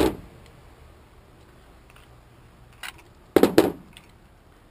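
A few sharp clacks and knocks of a vacuum cleaner's electric motor and fan parts being handled: one loud knock right at the start, a small click near three seconds, and a quick cluster of clacks about three and a half seconds in.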